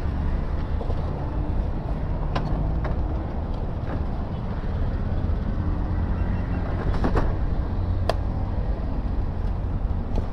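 Motorcycle engine idling, a steady low rumble, with a few sharp clicks.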